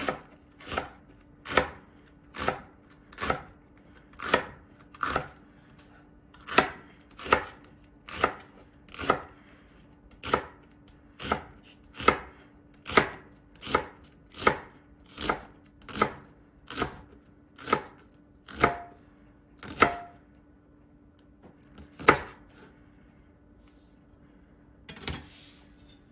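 Kitchen knife chopping on a cutting board in slow, even strokes, about one cut every 0.8 seconds. The strokes pause briefly, stop about twenty seconds in, and one last cut follows.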